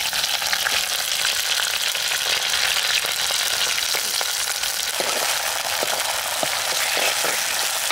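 Onions frying in a pot: a steady sizzle with scattered crackles that grow more distinct about five seconds in.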